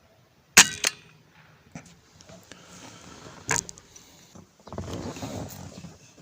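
Air rifle firing: a sharp report about half a second in, followed a moment later by a second sharp crack, then another sharp report a few seconds later. About a second of rustling noise follows near the end.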